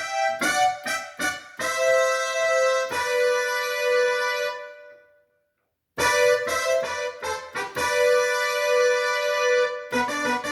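Yamaha PSR-530 keyboard sounding one of its instrument voices: a few short notes, then a held two-note chord that fades away. After a second of silence, more held notes play, followed by quicker short notes near the end.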